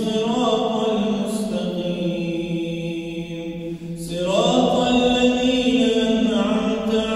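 A man's solo voice chanting Islamic prayer recitation in long held melodic notes. He pauses for breath a little before four seconds in and resumes on a higher, louder phrase.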